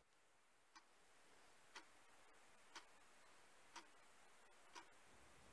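Clock ticking, one faint tick a second, five ticks over near silence.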